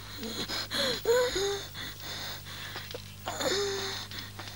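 A feverish young girl moaning and gasping in bed, about four short, strained vocal sounds with falling pitch; she is gravely ill with a high fever.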